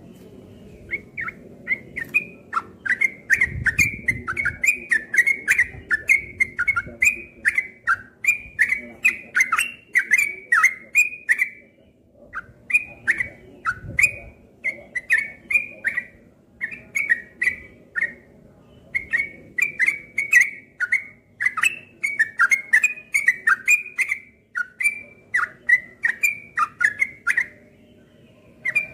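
Caged yellow-vented bulbul (trucukan) singing in rapid runs of short, chattering whistled notes, the fast continuous 'ropel' style, in phrases of a few seconds broken by brief pauses.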